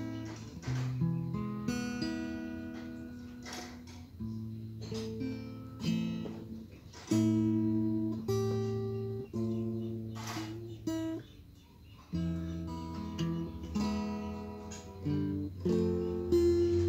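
Acoustic guitar played solo: chords strummed and left to ring, each fading away before the next is struck.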